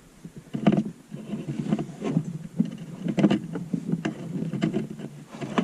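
Irregular knocks, scrapes and rustling of hands working a parking brake cable through a car's interior.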